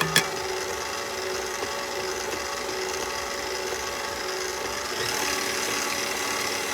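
Electric mixer running steadily on low speed, whipping heavy cream with powdered sugar, with a couple of sharp taps right at the start.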